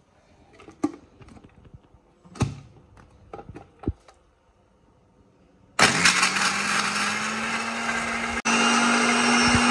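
A few sharp clicks and knocks, then an electric blender starts about six seconds in, grinding chopped red chilies and ginger with water into a paste. It runs with a loud, steady whine, cuts out for an instant near the end and comes straight back at a slightly higher pitch.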